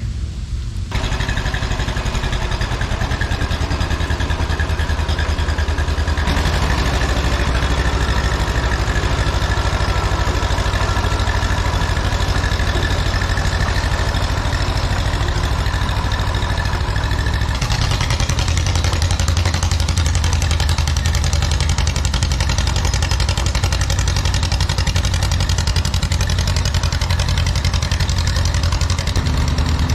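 Engine of a piece of farm or earthmoving machinery running steadily. The sound changes character abruptly about 6 seconds in and again near 18 seconds.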